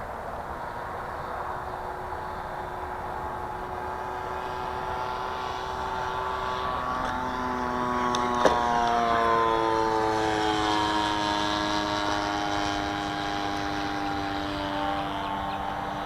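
Sky Surfer Pro RC plane's electric motor and propeller whining steadily. The whine grows louder and rises a little toward the middle, where there is a sharp click, then falls in pitch and eases off.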